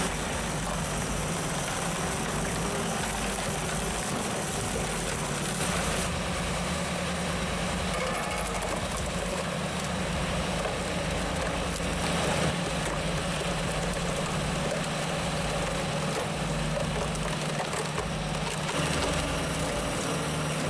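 A wood-splitting machine at work: its engine runs with a steady hum while logs are split, with wood crunching and cracking.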